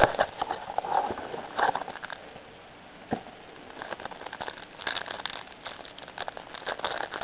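Trading-card packaging, a cardboard blaster box and its pack, being handled and opened by hand: irregular crackling and rustling with scattered sharp clicks.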